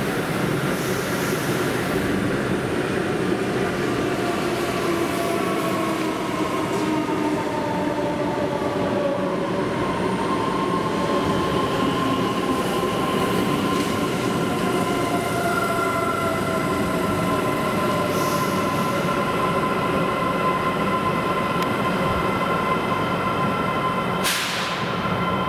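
An Ivolga 2.0 (EG2Tv) electric multiple unit pulls into a platform with wheel and rail noise. A whine of several tones falls in pitch over the first ten seconds as the train slows, and then holds steady. A brief hiss comes near the end.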